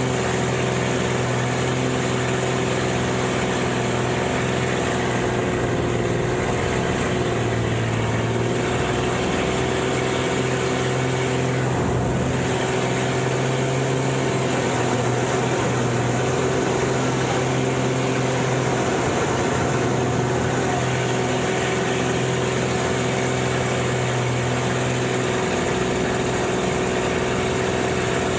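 Panzl aerobatic plane's piston engine and propeller running steadily, heard from inside the cockpit over air rushing past the canopy. The drone dips briefly about twelve seconds in.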